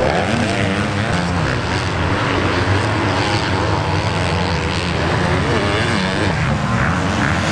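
Several motocross bikes running on a sand track, their engines revving up and down so the pitch keeps rising and falling, more than one engine at a time.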